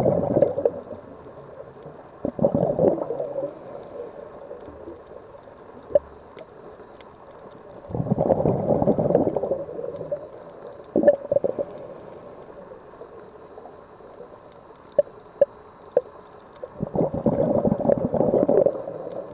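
Scuba diver's regulator underwater: exhaled bubbles gurgling out in bursts of one to two seconds, about every eight seconds, with a few sharp clicks in between.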